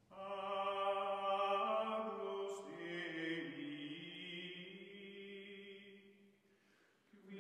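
Choir-like chanting music: long held voices in a chord that shifts in pitch about three seconds in, fades away near the end, then starts again after a brief silence.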